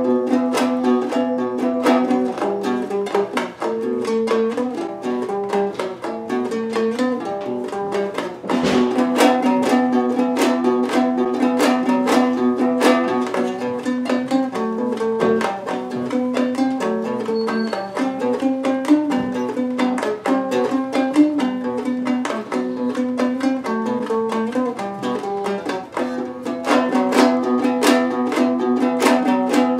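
Kazakh dombra strummed fast and rhythmically: a steady low note rings under a repeating melody, with a short break about eight seconds in.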